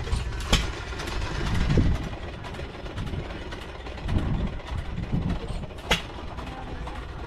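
An engine idling steadily with a low rumble, with a couple of sharp clicks.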